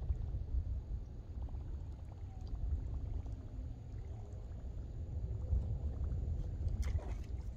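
Wind buffeting the microphone: a steady low rumble, with a few short clicks near the end.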